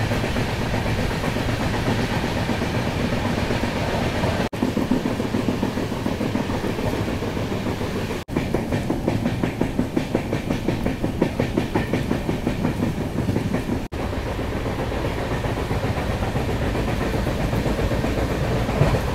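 Moving Indian express passenger train, its wheels clattering over the rail joints in a steady rumble. The sound cuts out sharply for an instant three times.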